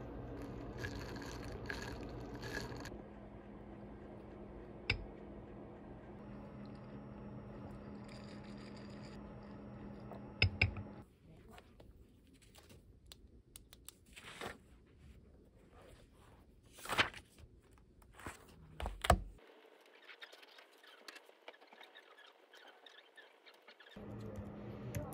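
Quiet everyday handling sounds in turn. First, matcha is poured over ice in a tall glass, with light crisp clinks about twice a second. Then comes a low steady hum, then a pen on a paper planner with a few sharp knocks. Light clicking typing on a slim keyboard starts near the end.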